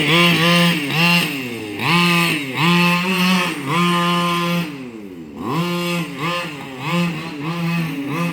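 Small two-stroke weed-trimmer engine on a gas-powered RC car, revved up again and again: each burst rises quickly to a high, steady pitch, holds briefly and drops back, with a short lull about two-thirds of the way through.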